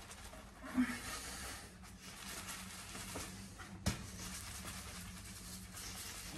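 Soft plastic running flask full of soapy water being shaken hard by hand, with faint sloshing and rustling and one sharp knock about four seconds in.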